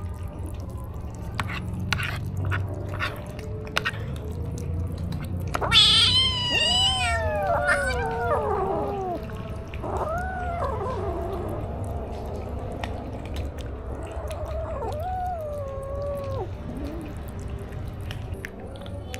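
Kittens meowing at their food: a loud, wavering, high meow about six seconds in that slides down in pitch over two to three seconds, then two shorter rising-and-falling meows around ten and fifteen seconds. Soft clicks in the first few seconds as they eat.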